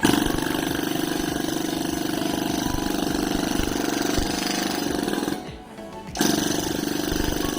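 Handheld electric percussion massager running, a steady motor hum with rapid hammering strokes. It stops for under a second about five and a half seconds in, then starts again.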